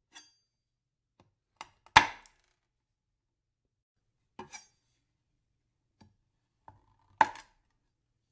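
A few scattered, sharp knocks and clicks with silence between them. The loudest comes about two seconds in and another about seven seconds in, the second led by a brief steady tone.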